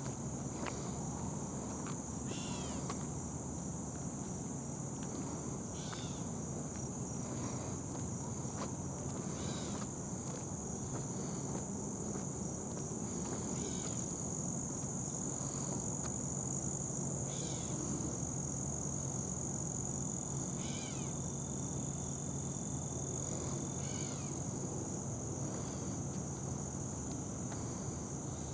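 Steady, high insect chorus, a continuous fine pulsing trill, with short falling chirps every few seconds and a low steady rumble underneath.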